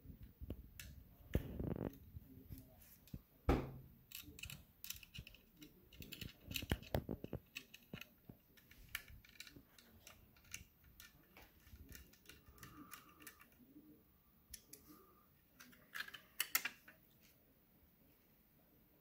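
Irregular light clicks, taps and scrapes of hands fitting an SSD into a laptop's drive bay, with a sharper knock about three and a half seconds in.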